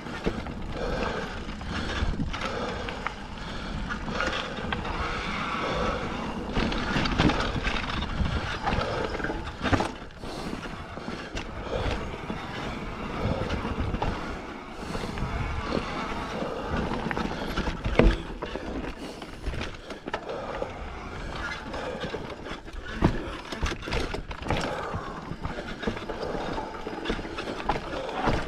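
Mountain bike ridden over a dirt forest trail: tyres crunching over dirt and roots while the bike rattles and knocks over bumps, with a sharp knock about 18 seconds in.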